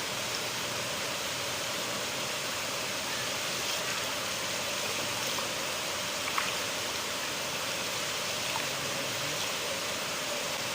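River water flowing steadily, a constant rushing hiss of running water, with one faint brief tick about halfway through.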